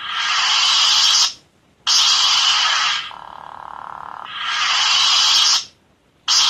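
Lightsaber sound-card module cycling its effects: a steady hum, a retract sound that builds and cuts to silence, then after about half a second an abrupt ignition sound that settles back into the hum. The retract–ignition cycle happens twice, about four seconds apart.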